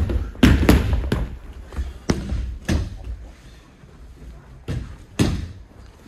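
Bodies and feet thudding on tatami mats during aikido practice: a cluster of heavy thuds in the first second and a half, then single thuds about two, almost three, and five seconds in.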